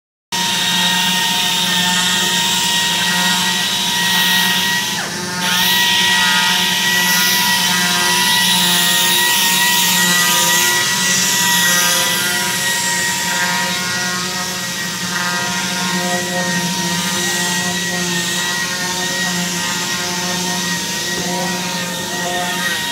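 Random orbital sanders and other workshop machinery running steadily on wood panels: a high whine over hiss, with a brief dip in pitch about five seconds in.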